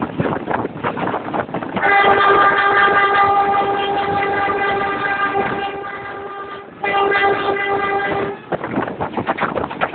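Diesel locomotive horn of a moving Matarmaja passenger train: one long steady blast of about four seconds, then a shorter blast, over wind rush and wheel clatter heard from the open door of a carriage.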